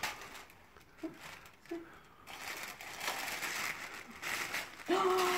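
Tissue paper rustling and crinkling as a tissue-wrapped package is handled and opened, starting about two seconds in and running steadily until a voice comes in near the end.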